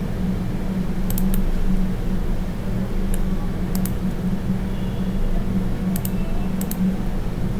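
A steady low hum of room or recording noise, with a few faint, sharp clicks from working at a computer, some in quick pairs.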